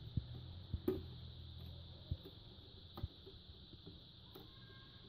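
A few faint, scattered clicks and taps of fingers working the flat ribbon cables loose from an LCD TV's T-Con board connectors, over a steady low hum and hiss.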